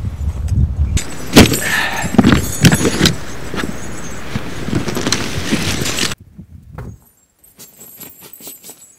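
Boots crunching through snow, then a run of clattering knocks and rattles as plastic and aluminium gear boxes are handled and set down. The sound cuts off abruptly about six seconds in, leaving only a few faint rustles and clicks.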